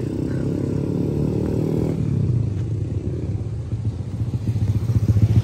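A motor vehicle engine running close by with a steady low hum, growing louder near the end.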